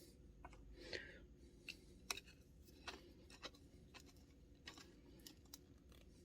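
Faint, irregular metallic clicks and taps from a 3/4-inch drive ratchet's parts being handled and fitted together during reassembly, the loudest click about two seconds in.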